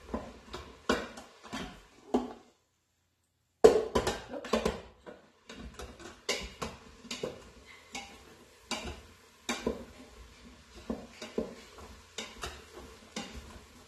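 A wooden spoon stirring chopped cauliflower and vegetables in a stainless steel Instant Pot inner pot: a quick, irregular run of knocks and scrapes against the metal, broken by about a second of dead silence a couple of seconds in.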